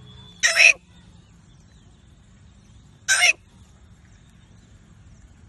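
A man imitating the call of a Himalayan monal with his voice. Three short, loud, harsh calls come about two and a half seconds apart, the last right at the end.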